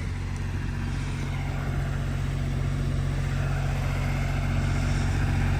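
Engine running steadily at idle, its pitch unchanging, growing slowly louder.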